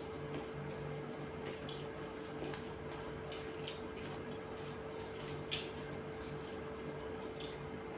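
Wet eating sounds of rice, curry and dal eaten by hand: chewing, lip smacks and fingers squishing the food, heard as scattered short smacks every second or so over a steady low hum.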